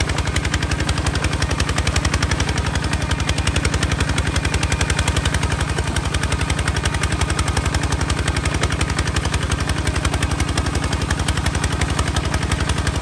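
Kubota ZT155 DI walking tractor's single-cylinder diesel engine running steadily under load with a fast, even exhaust beat, its cage wheels churning through deep paddy mud.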